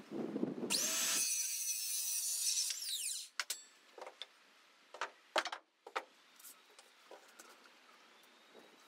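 Cordless Makita circular saw spinning up and cutting a length of 2x1 timber batten, then winding down about three seconds in. A few sharp knocks of wood being handled follow.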